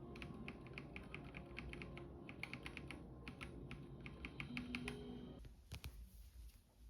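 A fast, uneven run of light tapping clicks, like typing on a keyboard, over soft background music; both stop about five and a half seconds in.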